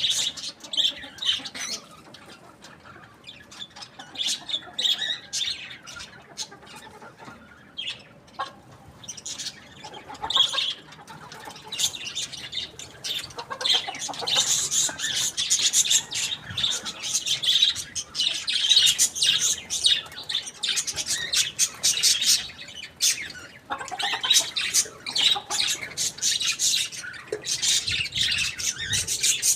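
A flock of chickens calling, many short high chirps and squawks overlapping, getting busier and louder about halfway through.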